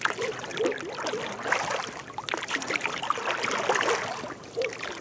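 A wet rope hauled in hand over hand from a small boat, with water trickling and splashing off the rope and lapping at the hull in uneven surges.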